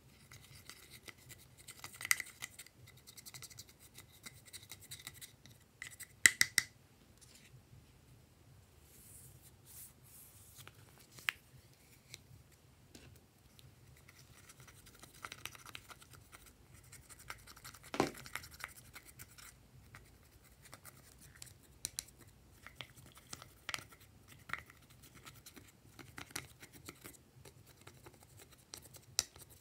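Plastic spatula scraping and chipping pressed eyeshadow out of the pans of a makeup palette: irregular dry scratching broken by sharp clicks, the loudest about six seconds in.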